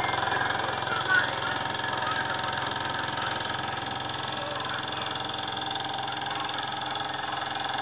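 Sankyo Sound 700 Super 8 sound film projector running steadily: the mechanical hum and rattle of its motor and film transport.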